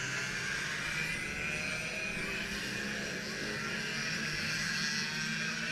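Racing kart engines running on the circuit: a steady, overlapping drone of several karts lapping, with no single kart passing close.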